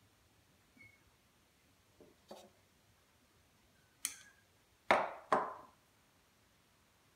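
A single sharp snip of diagonal cutters, followed by two knocks about half a second apart, with a few faint handling clicks before.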